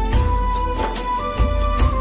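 Background music: a melody of long held notes over a steady beat and low bass.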